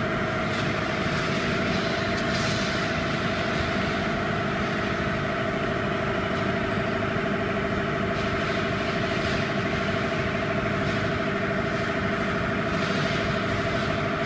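Steady hum of workshop machinery running, with two steady tones held throughout and a few faint scrapes of the plastic frame being handled.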